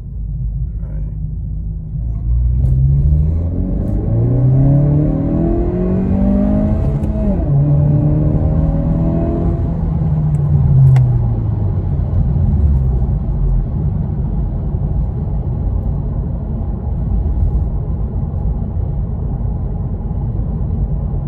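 Tuned 2022 Honda Civic Si's 1.5-litre turbocharged four-cylinder accelerating hard on a second-gear pull, engine pitch rising steadily for several seconds. About seven seconds in the pitch drops and holds briefly, then winds down, leaving steady road and engine rumble inside the cabin.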